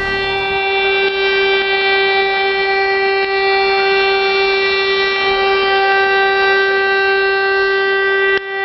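Civil defence siren sounding during a test alarm, one steady unwavering tone with a brief drop-out near the end.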